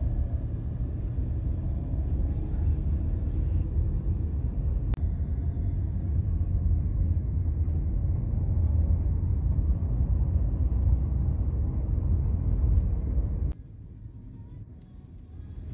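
Steady low rumble of engine and road noise inside a Toyota car's cabin while driving. Near the end it cuts abruptly to a much quieter hum.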